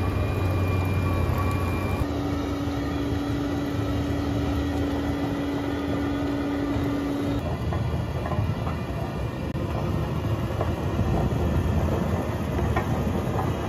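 Bobcat T870 track loader's diesel engine running hard while the CONETEKS 2.13SF forestry rotor grinds stumps, roots and soil: a steady heavy machine din with scattered knocks. Its tone shifts abruptly about two seconds in and again about halfway through.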